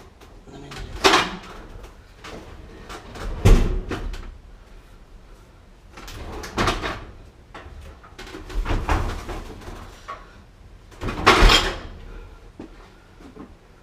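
Metal cabinet of a GE gas dryer being shifted and turned on the floor: five separate bouts of knocking and scraping a couple of seconds apart, some sharp, some drawn out for about a second.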